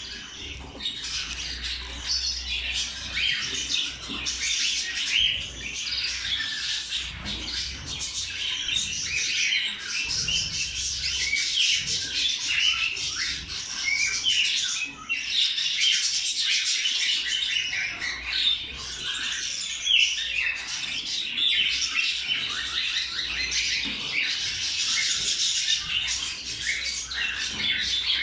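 Budgerigars chattering: a dense, unbroken stream of high-pitched chirps and squawks.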